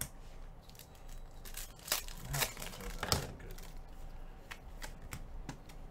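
Trading cards being handled by gloved hands: a run of soft crinkles, slides and light taps of card stock, a few louder ones about two and three seconds in.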